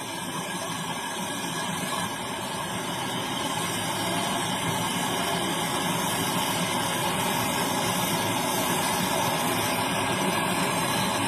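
Gas brazing torch flame burning with a steady roaring hiss while a refrigerator's copper refrigerant line is heated.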